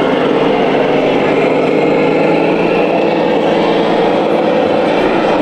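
A steady, unbroken engine-like running sound.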